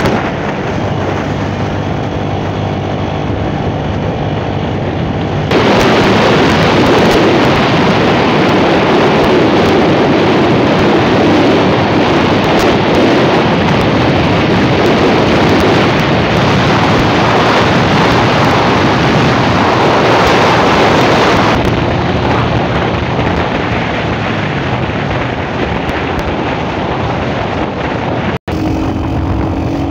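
A motorcycle engine running steadily at road speed, with wind rushing over the microphone. The wind noise is louder for a long stretch in the middle, and the sound cuts out for an instant near the end.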